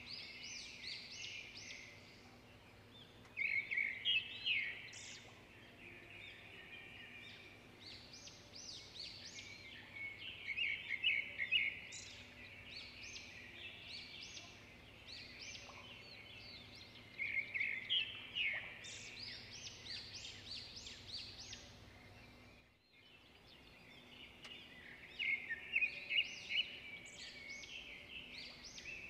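Small birds chirping and twittering, in quick runs of high notes every few seconds, over a faint steady hum. The sound cuts out for a moment about three quarters of the way through, and the hum does not come back.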